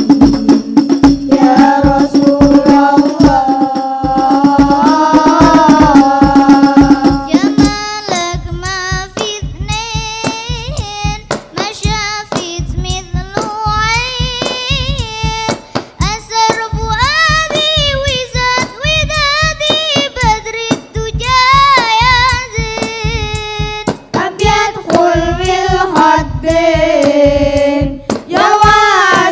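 Children singing a sholawat devotional song in unison, the melody heavily ornamented with gliding notes, over a steady beat of hand-struck frame drums (rebana) and a large bass drum. For about the first eight seconds a long low note is held under the singing, then the melody moves on more freely.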